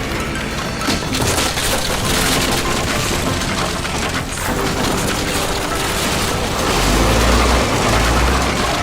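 Loud, continuous crashing and splintering of a structure being demolished, with a deep rumble coming in near the end, over background music.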